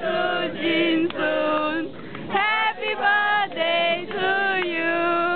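A group of people singing together in unison, holding long notes, with a short pause about two seconds in.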